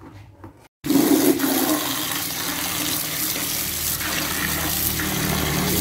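Tap water pouring and splashing into a bucket of rice seed, rinsing the salt water off the seed. It starts suddenly about a second in and then runs steadily.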